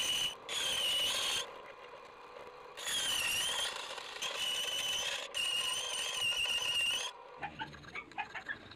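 Scroll saw blade cutting a thin metal sheet, a high wavering squeal in several runs of about a second each that stops about seven seconds in. A few light clicks follow near the end.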